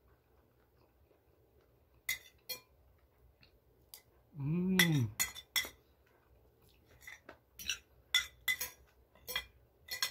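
A metal spoon and fork clinking and scraping against a plate, with a dozen or so short clinks. About halfway through comes a short hum from the eater that rises then falls in pitch.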